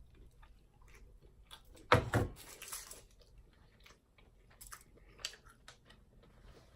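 A person eating seafood close to the microphone: chewing with small wet clicks, and one loud knock about two seconds in followed by a brief rustle.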